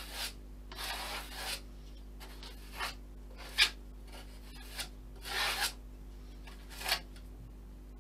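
A thin, flexible plastic card spreading and scraping filler over a model aircraft fuselage: a run of short scrapes at uneven intervals, each from a fraction of a second to about a second long.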